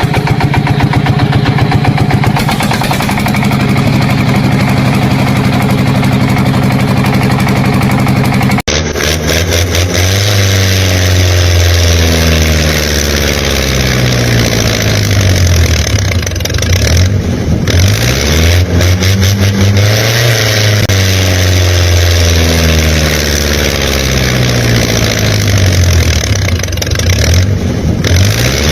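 An engine runs steadily. About nine seconds in it cuts off abruptly, and then it revs up and down repeatedly.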